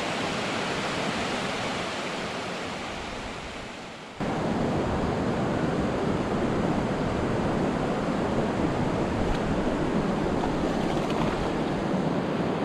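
River water rushing over a rocky riffle: a steady rush that fades down, then cuts back in louder about four seconds in.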